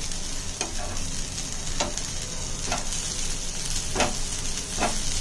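Sliced onion, dried coconut and coriander sizzling in oil in a pan while being stirred, with the sizzle steady and short scraping stirring strokes about once a second. The mix is being roasted to a reddish brown without letting it burn.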